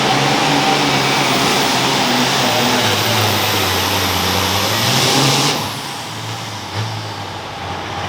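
Competition pulling tractor's engine running hard at full throttle under load, a loud, steady, dense engine sound. About five and a half seconds in it drops suddenly to a lower level as the engine is let off at the end of the pull.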